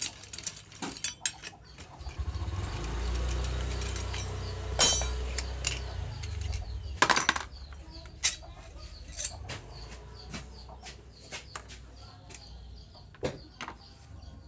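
Tools and metal engine parts clinking and knocking as a Honda Beat FI scooter engine is taken apart. A low rumble starts about two seconds in and lasts several seconds.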